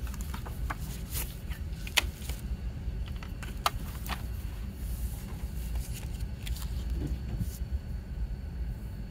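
Paper CD booklet pages being turned and handled, with short rustles and small sharp clicks of a plastic jewel case, the sharpest about two seconds in. A steady low rumble runs underneath.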